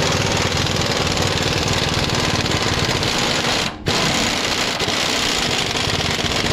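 Impact wrench hammering on the stock panhard rod's axle mounting bolt (18 mm) to break it loose and run it out, in two long bursts with a brief stop a little past the middle.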